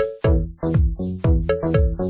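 Upbeat electronic background music with a steady, fast drum-machine beat and synthesizer notes, about four beats a second.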